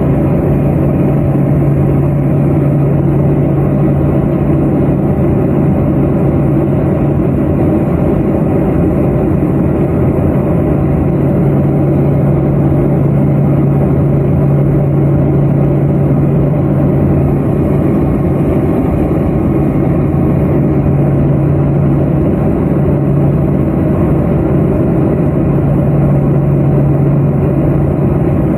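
Let L-410 Turbolet's twin turboprop engines and propellers heard from inside the cabin: a loud, steady drone with a strong low hum that holds the same pitch throughout.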